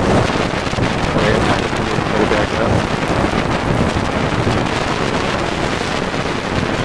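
Storm wind near a tornado blowing hard and steadily across the camera's microphone: a dense, unbroken rush of noise.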